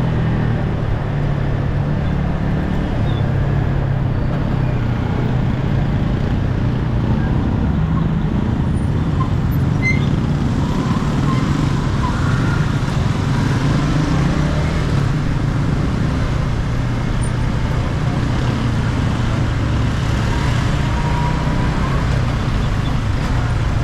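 Yamaha MT-15's 155 cc single-cylinder engine with its stock exhaust, running steadily while riding, its pitch wavering slightly as the throttle changes, with wind and road noise.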